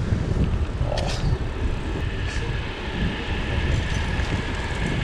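Wind buffeting the microphone of a moving bicycle, a dense low rumble, with a faint steady high whine coming in about two seconds in.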